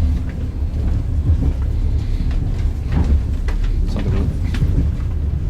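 Old Soviet-style passenger train under way, heard from inside a carriage: a steady low rumble with scattered rattles and sharp knocks.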